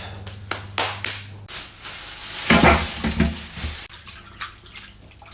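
Food frying in a hot pan, sizzling and being stirred, with a few knocks of the utensil; the sizzle swells about two seconds in and eases off about four seconds in.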